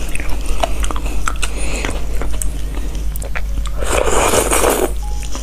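Close-up mouth sounds of eating horned melon (kiwano) seed pulp: small wet clicks of chewing and spoon scooping, then a loud slurp lasting about a second near the end as the fruit is sucked from.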